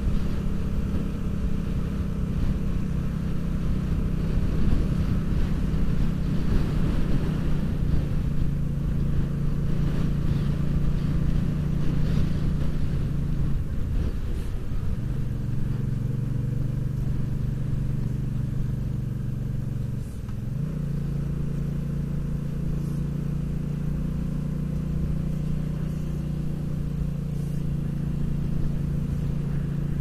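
Motorcycle engine running steadily at road speed, with wind noise over it. The engine note drops out and settles at a new pitch around the middle, and dips briefly about two thirds of the way through.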